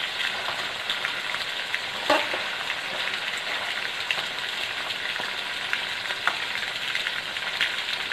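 Chicken pieces coated in chili powder and turmeric deep-frying in hot oil in an aluminium kadai: a steady sizzle with many small crackles. One sharp knock about two seconds in.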